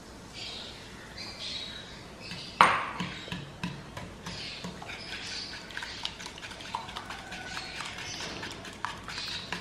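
Wire whisk beating eggs into chocolate brownie batter in a small aluminium saucepan: a sharp metal clank about two and a half seconds in, then quick irregular clicks and ticks of the wires against the pan with a wet swishing.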